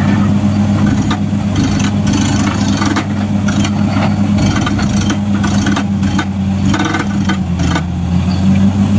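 Truck-mounted borewell drilling rig running: a steady heavy engine drone, with hiss and clatter as air blasts dust and rock cuttings up out of the borehole.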